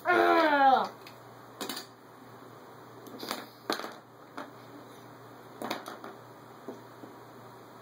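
A child's wordless vocal sound falling steeply in pitch for about a second, then a few scattered light clicks and clacks of plastic action figures being set down on the wooden floor and knocked together.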